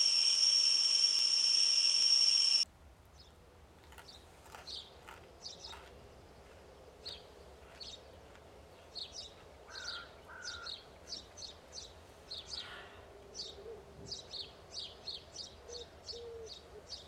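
A loud, steady high-pitched tone that cuts off suddenly after about two and a half seconds, then small birds chirping over faint background noise.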